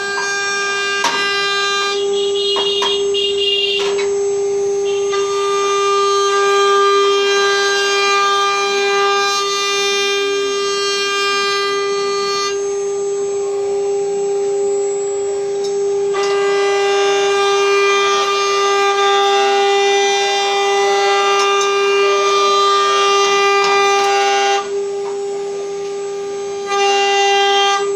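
CNC router running a job: the spindle whines at a steady pitch while the axis stepper motors whine in tones that switch abruptly every few seconds as the machine changes moves.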